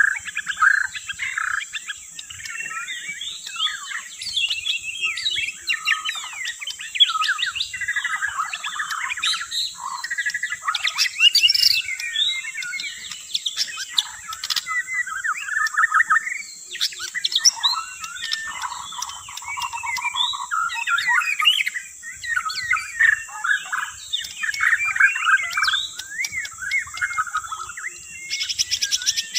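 White-rumped shama (murai batu) singing a long, varied song of fast, changing phrases without a pause. A steady high hiss runs behind it.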